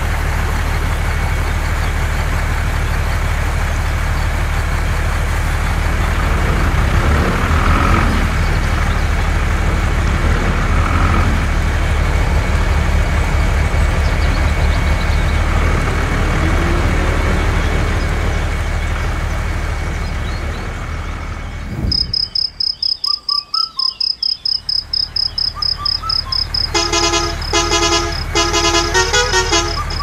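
A truck engine running steadily. About two-thirds of the way in it cuts off abruptly and a high, fast-pulsing tone takes over. Near the end a horn toots in a quick series of short blasts.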